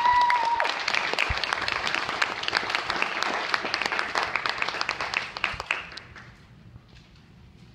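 Audience applauding, with a short whistle at the very start; the clapping dies away about six seconds in.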